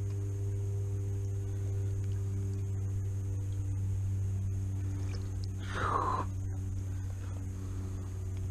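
A steady low hum with faint higher tones over it, a few faint clicks, and a short cry falling in pitch about six seconds in.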